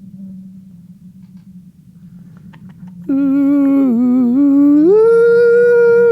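A person humming a long eerie note as a mouth-made sci-fi effect, starting about three seconds in over a faint steady low drone. The note dips, then slides up to a higher pitch and is held with a slight wobble.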